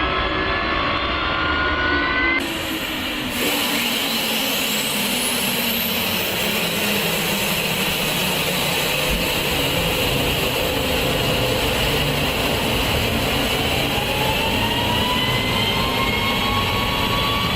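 B-52 bomber jet engines running: a steady, loud turbine roar with whining tones that slide up and down in pitch. The sound changes abruptly twice, about two and three seconds in.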